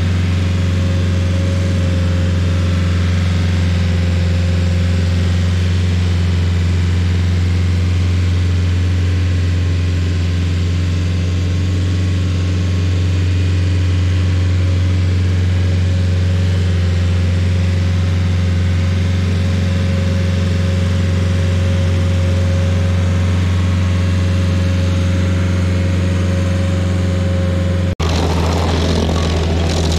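Rayco RG50 stump grinder's engine running steadily with a deep, even drone. About two seconds before the end, the sound cuts to the grinder's cutter wheel chewing into a stump, a rough, hissing spray of chips over the engine.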